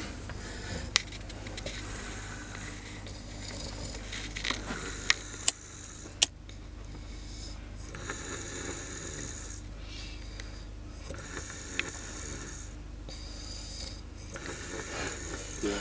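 A sleeping man snoring, slow breaths swelling and fading every couple of seconds, with a few sharp clicks of a lighter being struck.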